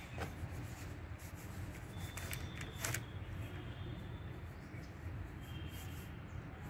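Sketching strokes scratching across drawing paper on an easel, a few sharper strokes about two to three seconds in, over a steady low rumble.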